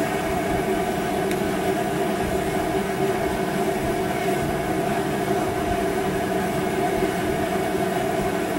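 A steady, unchanging mechanical drone with several held tones in it, from a machine running in the background.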